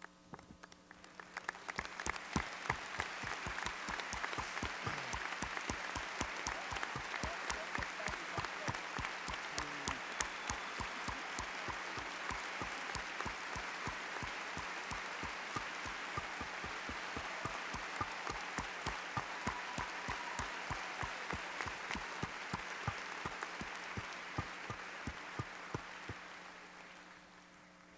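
Large audience applauding, swelling about a second in, holding steady, and dying away near the end.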